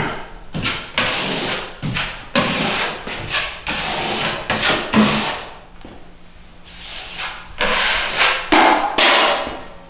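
Metal drywall taping knife scraping joint compound along a drywall seam in repeated strokes, taking off the excess mud so the gap is filled flush. The strokes pause briefly about six seconds in, then resume.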